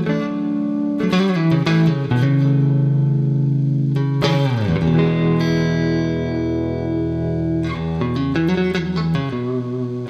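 1980 Gibson ES-335 TD semi-hollow electric guitar with humbucking pickups, strummed chords. About four seconds in, a chord's notes slide down in pitch and then ring out for about three seconds, before quicker picked notes resume near the end.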